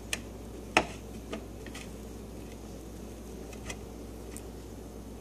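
A few light clicks and knocks, the loudest just under a second in, from a butter knife tapping against the plate while butter is spread on bread.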